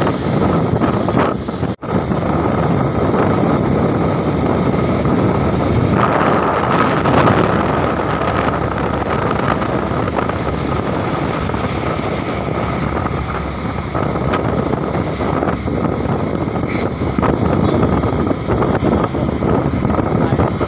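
Hino truck under way: a steady mix of engine, road and wind noise, with one brief dropout about two seconds in.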